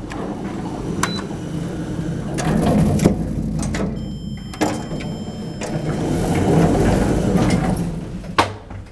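Camera handling and footsteps as someone steps into a small lift car: a dense rustling with several sharp clicks, and a short high electronic beep about four seconds in.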